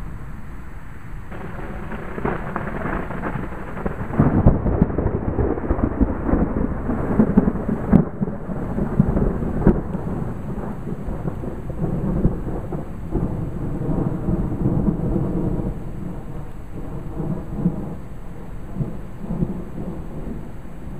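Thunder rolling: a long low rumble that builds about a second in, crackles loudest a few seconds later, then slowly dies away over many seconds.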